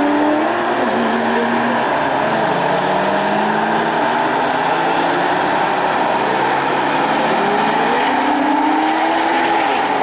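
A procession of Porsche sports cars driving past at low speed, their flat-six engines running together in a continuous mass. Several engine notes overlap, each rising and falling in pitch as cars accelerate and ease off.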